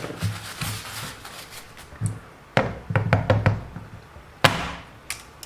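Hard plastic RC car suspension arms knocking and clicking as they are handled and set down on a hard surface: a few knocks at the start, a quick run of knocks around the middle, and one loud knock near the end.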